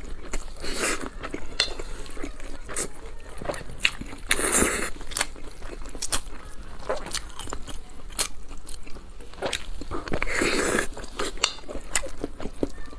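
Close-miked chewing of a mouthful of spicy noodles, with many short wet mouth clicks and lip smacks and two longer, louder stretches of chewing about four and ten seconds in.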